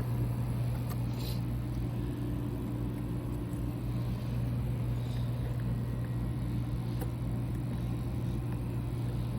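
A steady low hum, with a couple of faint ticks.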